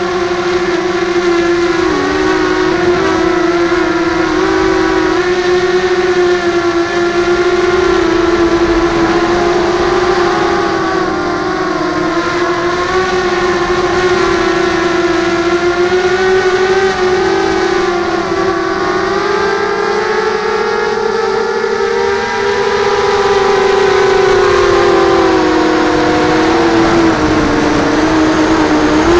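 Electric motors and propellers of a model Millennium Falcon FPV drone, heard up close from its onboard camera: a steady whine whose pitch wavers with the throttle. It rises for several seconds about two-thirds of the way through, then drops back.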